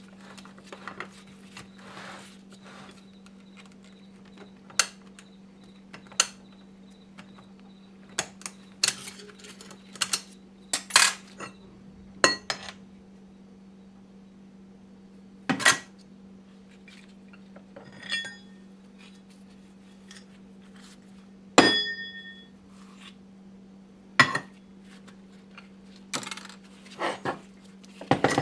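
Metal clutch plates from a 4L80e transmission being handled and set down, giving irregular clinks and clacks, a few of them ringing briefly like struck metal discs. A steady low hum runs underneath.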